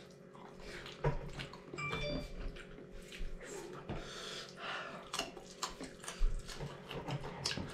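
Eating sounds close to the microphone: wet chewing and slurping with scattered small clicks.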